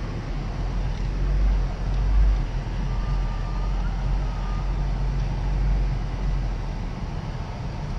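Steady low rumble of a 4x4's engine and tyres working along a snow-covered off-road track, heard from inside the cab.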